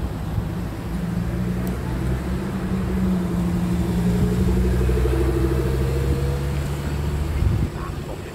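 Lamborghini Huracán STO's naturally aspirated V10 running at low revs as the car rolls slowly past, its note rising a little in pitch around the middle. The sound drops off shortly before the end as the car moves away.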